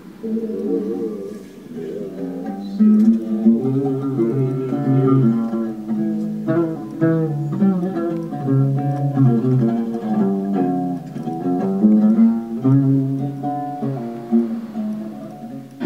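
Instrumental music: a plucked string instrument playing a continuous melody of picked notes.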